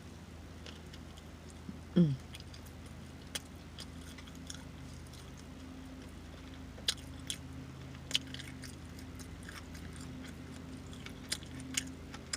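A short loud burp about two seconds in, dropping in pitch. It is followed by wet lip-smacking and chewing clicks from someone eating a fried chicken sandwich.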